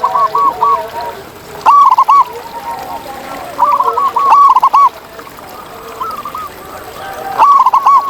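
Wild zebra dove (perkutut) singing its cooing song: three loud runs of quick, arching coo notes, about two, four and seven and a half seconds in, with softer cooing in between.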